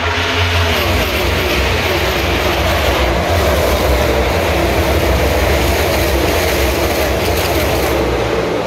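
A pack of NASCAR Cup cars' V8 engines running at speed down the front stretch, the pitch of several cars dropping as they pass in the first second, then a dense, sustained engine noise from the field that eases slightly near the end.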